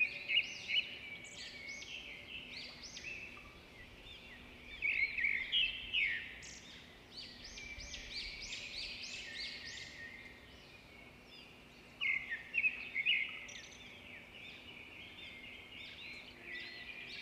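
Small birds chirping and twittering: many quick, high chirps in clusters, loudest at the very start, about five seconds in and about twelve seconds in, over a faint steady low hum.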